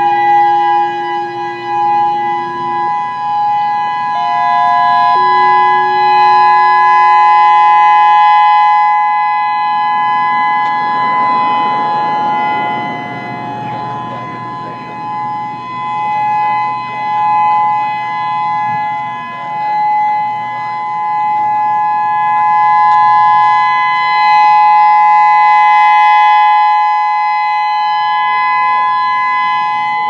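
Federal Signal EOWS-612 electronic outdoor warning siren sounding its steady alert: two steady tones held together, the loudness swelling and dipping in the middle.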